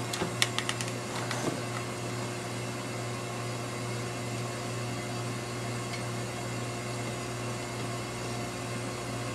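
Steady low room hum, like a fan or appliance running, with a few light clicks and taps in the first second or so as a hot glue gun and foam strips are handled.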